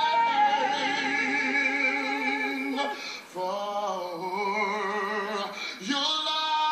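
Man and woman singing a duet, holding long notes with vibrato in three phrases, with short breaks about three seconds in and just before six seconds. Heard through a television speaker.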